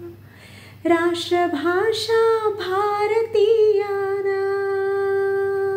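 A woman singing unaccompanied in Sanskrit: a short pause, then a line with moving pitch that ends on a long held note.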